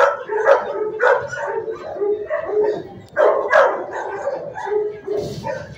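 Shelter dogs barking in the kennels, short barks one after another with hardly a break.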